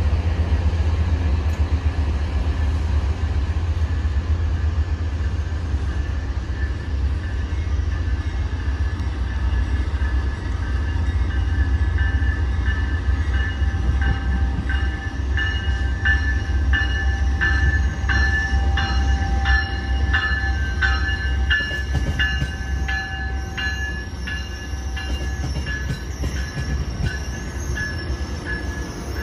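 Railcars rolling past with a steady deep rumble. From about halfway a high steady tone rises above it, with evenly spaced clicks at nearly two a second, fading near the end.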